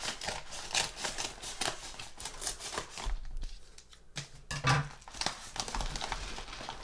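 Scissors snipping along the edge of a kraft-paper padded mailer in a quick run of cuts, then the paper envelope crinkling and rustling as it is opened and handled.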